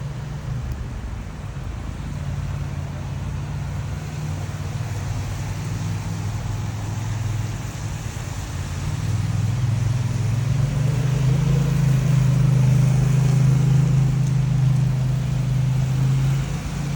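Steady low rumble of a road vehicle, with a light hiss above it, growing louder about ten seconds in.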